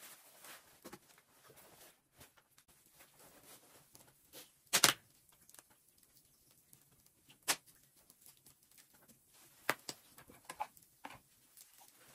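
Wood fire crackling, with a few sharp pops: the loudest about five seconds in, then single pops about every two seconds and a small cluster near the end.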